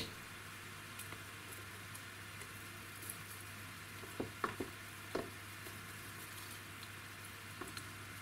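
Faint crackling and light clicks of old orchid bark chips and dry roots being handled and pulled apart, with a small cluster of clicks about four to five seconds in, over a steady background hiss and low hum.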